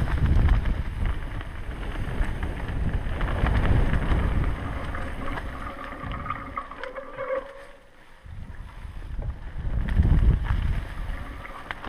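Specialized Enduro Expert Carbon 26-inch mountain bike rolling downhill on a dry dirt trail strewn with dead leaves: a steady rumble of the tyres and rattle of the bike, with wind on the camera microphone. It eases off just before the eight-second mark and gets loud again about two seconds later.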